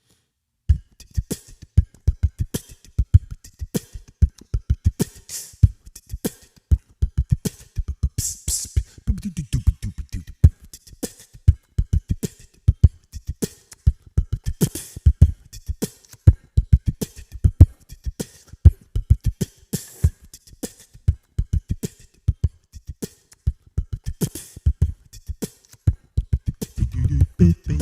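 Beatboxed vocal percussion: a steady groove of short kick-like thumps and sharp clicks and hisses, with a low sustained sound coming in near the end.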